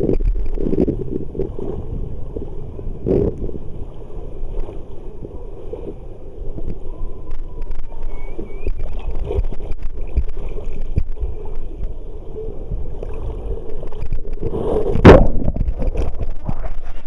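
Rushing water and rumbling of a rider sliding down a water slide, then a loud splash near the end as the rider plunges into the pool.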